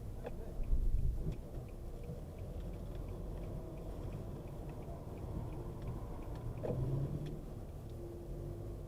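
A car's low, steady rumble, with a few light clicks and faint ticks over it.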